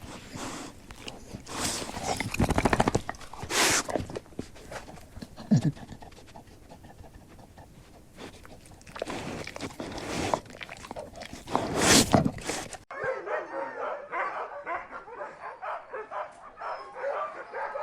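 Dogs barking, with several loud, separate calls over the first dozen seconds. After an abrupt cut about 13 seconds in, a dog gives a run of quick, high-pitched, whining cries.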